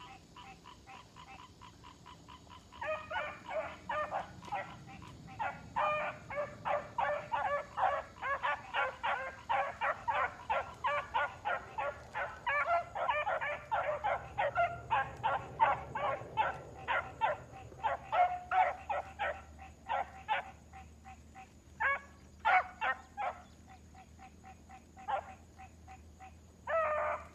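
Four-month-old puppies barking over and over in short, high-pitched barks, several a second, thinning out for a few seconds near the end before picking up again.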